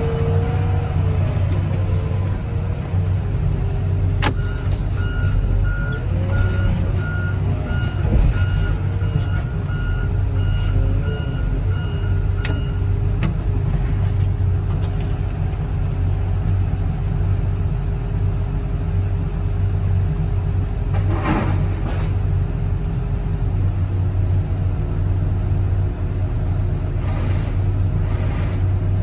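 Diesel engine of a hydraulic loader running under load, its pitch rising and falling as the boom is worked, then holding steady. A backup alarm beeps repeatedly for about eight seconds, starting a few seconds in.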